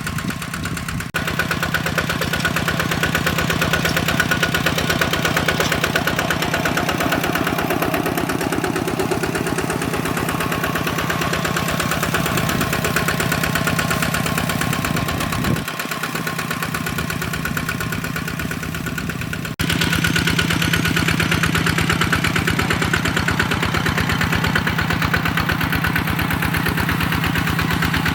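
Hand tractor's diesel engine running steadily with an even rapid firing beat, with a few sudden jumps in the sound.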